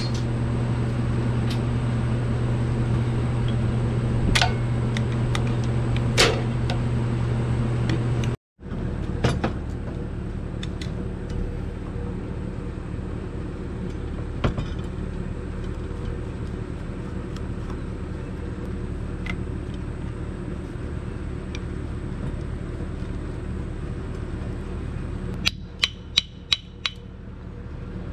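Hand tools clicking and tapping on a Ford 8N tractor's carburetor as it is unbolted and taken apart, over a steady low hum. Near the end comes a quick run of sharp clicks.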